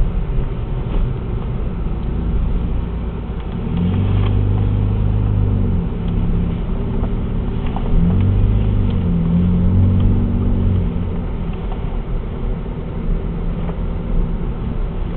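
Ford Fiesta Mk7 engine through a Friedrich Motorsport aftermarket exhaust, idling steadily and revved up and held twice, about four seconds in and again about eight seconds in, before settling back to idle.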